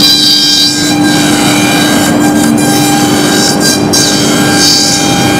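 CNC router spindle engraving a block of foam, running with a loud, steady whine over a constant hiss. Its higher tones come and go every second or so as the cutting head moves.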